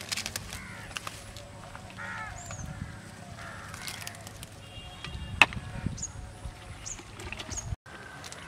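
Hands rummaging and squelching through wet grass and shallow mud, with scattered clicks and a sharp slap about five and a half seconds in, while birds call. The sound drops out for a moment near the end.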